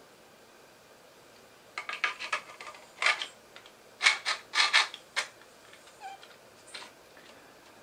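3D-printed plastic parts rubbing and knocking together as a foregrip is slid onto a blaster body: a run of short scrapes and clicks over about three seconds, then a couple of faint clicks.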